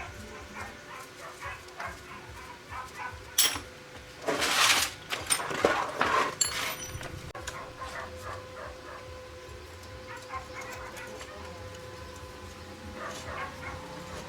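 A dog whimpering and yipping in short repeated calls, with a sharp click and then a loud burst of hissing noise and clatter about four seconds in, and a faint steady hum after it.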